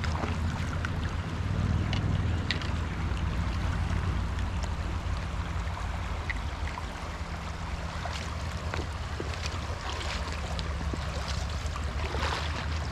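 Steady low hum with wind and river-water noise, and a few scattered light clicks.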